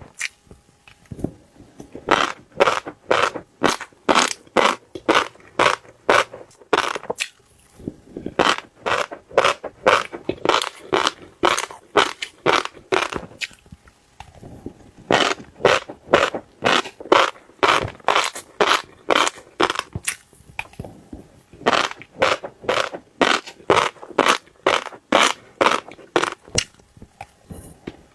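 Fish roe being crushed by hand, a quick run of crackling pops about three a second, in runs broken by short pauses.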